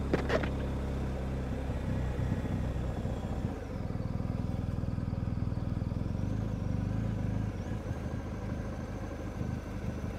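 BMW R1250GS Adventure's boxer-twin engine running at low revs while the bike is ridden along a dirt track. A short knock comes right at the start, and the engine note changes about two to three and a half seconds in.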